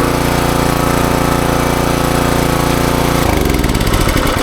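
Westinghouse WPX3200 gas pressure washer running steadily under load while spraying water, then about three seconds in the engine's pitch falls as it is shut off and winds down.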